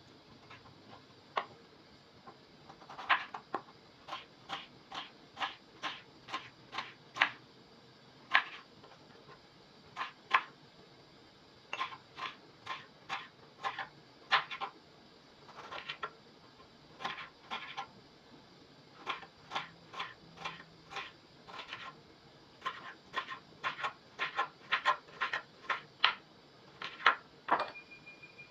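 Kitchen knife chopping tomatoes on a wooden chopping board: sharp taps of the blade striking the board, in runs of about two to three strokes a second with short pauses between.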